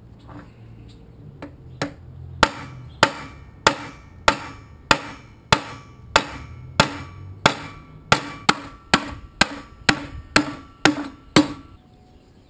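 Hand hammer striking a small steel sheet laid on a plywood board, about eighteen steady blows with a short metallic ring, quickening toward the end and stopping shortly before the end. The hammering dishes a convex curve into the steel; the wooden backing lets the metal deform instead of bouncing back as it would on an anvil.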